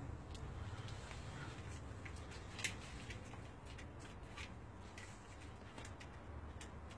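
Canaries in a cage: scattered light clicks and taps and short faint chirps over a low hum, with one sharper click about two and a half seconds in.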